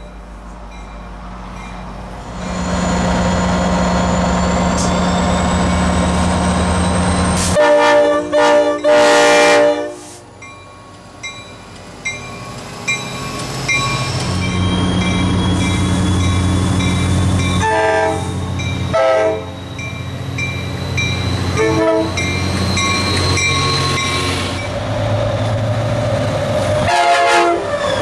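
Train passing with its locomotive horn sounded: two long blasts about eight seconds in, then several short blasts later, over a steady engine rumble and rolling cars. Through the middle a bell dings at an even pace.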